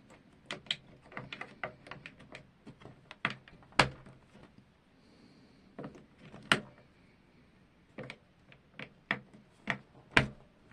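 Irregular plastic clicks, taps and knocks from handling the EP-133 K.O. II sampler while fitting batteries into its very tight battery compartment, with sharper snaps about four, six and a half and ten seconds in.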